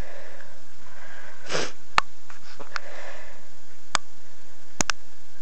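One short, sharp sniff about a second and a half in, with a few separate sharp clicks scattered after it.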